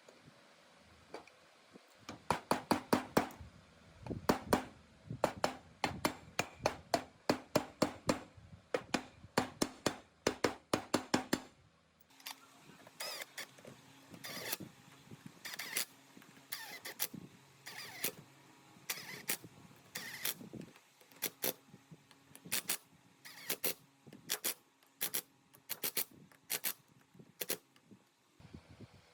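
Repeated sharp knocks, about two or three a second. A loud run is followed, after a brief pause about twelve seconds in, by a quieter, more uneven run.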